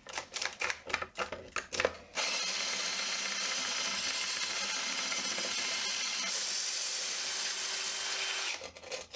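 DeWalt cordless drill spinning a diamond hole saw through wet porcelain tile: a steady grinding hiss that starts about two seconds in, runs for about six seconds and cuts off sharply near the end. A few light knocks and clicks come before it starts.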